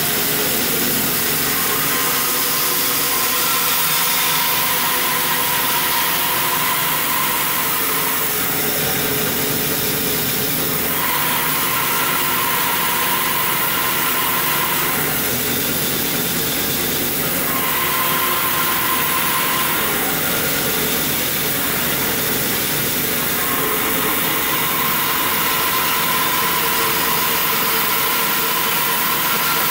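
Band saw running and cutting through a log: a steady machine noise with a higher tone that comes and goes every few seconds.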